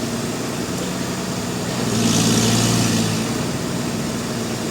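Machinery running with a steady low hum. About two seconds in, it grows louder for about a second with a rushing hiss, then settles back.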